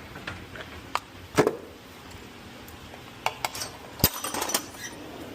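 Hand tools being handled and put away: a few sharp knocks and clinks, the loudest about one and a half seconds in, and a short metallic clatter about four seconds in.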